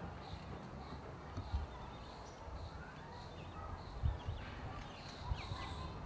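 Small birds chirping, short high calls repeated every second or less over a steady background, with a few dull low thumps about a second and a half, four and five seconds in.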